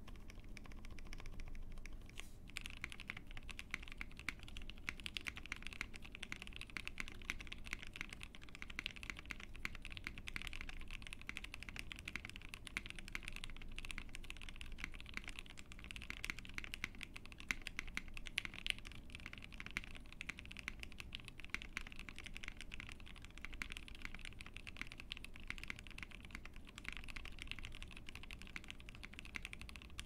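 Steady, continuous typing on an ai03 Vega mechanical keyboard: Gateron 8008 Ink linear switches lubed with Krytox 205g0, ePBT keycaps, in a POM plate with PCB and case foam. It is a rapid, even stream of keystrokes.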